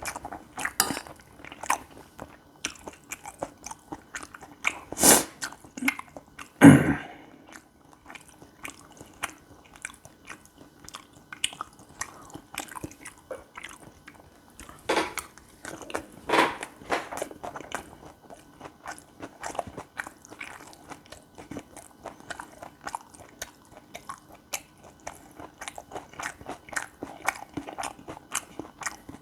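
Close-up chewing of gopchang fried rice: a steady run of small wet clicks and crunches from the mouth, with a few louder sharp knocks, the loudest about five and seven seconds in.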